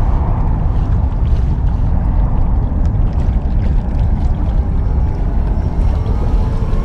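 Heavy wind rumble buffeting the microphone, loud and steady with no clear pitch. Faint music comes in near the end.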